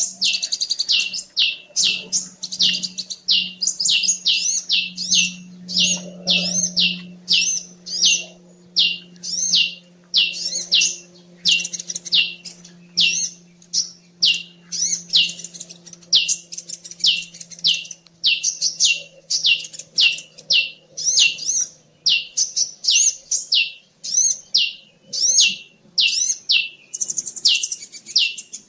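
Bird-lure recording of a prinia (ciblek) and a sunbird (kolibri) calling: sharp, high-pitched chirps repeated about twice a second without a break, under a faint low hum.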